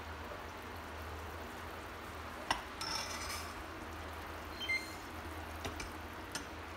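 Wooden chopsticks knocking and scraping against a stainless steel pot while picking out pieces of braised meat: a few light clicks, a brief scrape about three seconds in, and a short metallic ring a little before five seconds.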